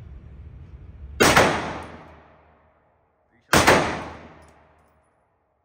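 Glock pistol fired twice, about two and a half seconds apart; each shot cracks sharply and its echo fades away over about a second.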